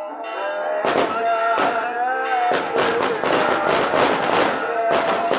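Fireworks and firecrackers going off in a string of sharp bangs, a few in the first two seconds and then in quick succession from about halfway, over a sustained melody.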